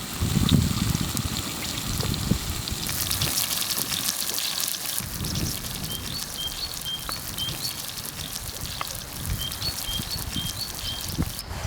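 A bird repeating a short chirp about twice a second, starting about halfway through, over a steady hiss.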